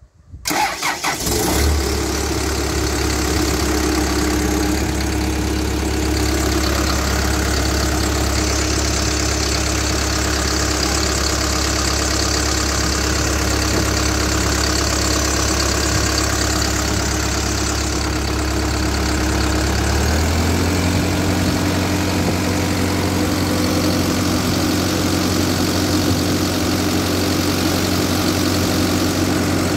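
Komatsu SAA4D107E-1 four-cylinder turbocharged diesel engine in a wheeled excavator cranking and catching within about a second and a half, then idling steadily. About twenty seconds in, the engine speed steps up to a slightly higher steady idle.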